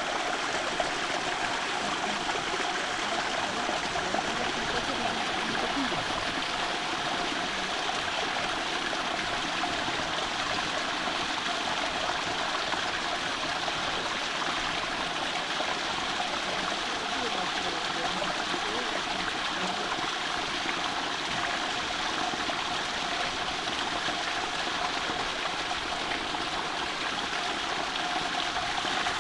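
Water dripping and trickling from a thin waterfall into a pool: a steady, even patter and rush of many falling drops that never lets up.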